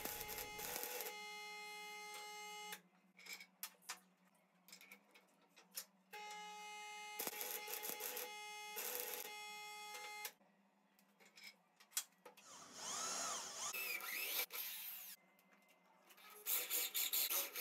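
Electric arc welder striking two short welds on steel plate, each a steady hum with a few crackles that cuts off sharply. Near the end a drill press spins up and begins drilling into a steel rod.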